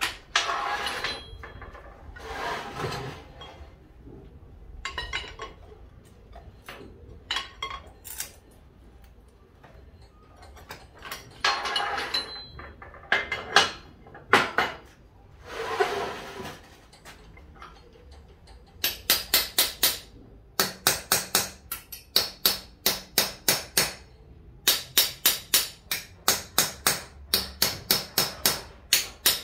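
Metal tool work on a lever casting mould: irregular clanks and scrapes in short spells, then, about two-thirds of the way in, a fast, even run of sharp strikes or strokes, about five a second, in three spells.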